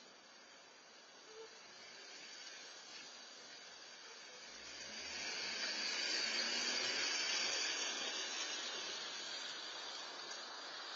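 A car driving past on a wet road, its tyres hissing on the wet tarmac: the hiss swells to its loudest about six to eight seconds in, then fades slowly.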